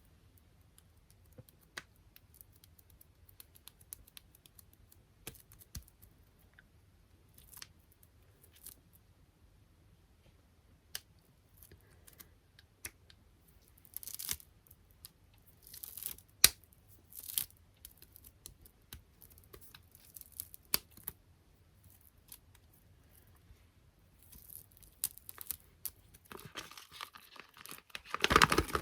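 Close-miked sticky tapping: fingers tapping and peeling on squishy toys, stickers and small clips, giving scattered light ticks and short sticky, tearing-like peels, busier and more crinkly near the end.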